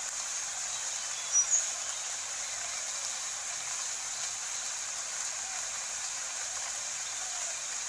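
Steady rain hiss from a rain-sounds ambience track. About a second and a half in, two short high chirps stand out above it.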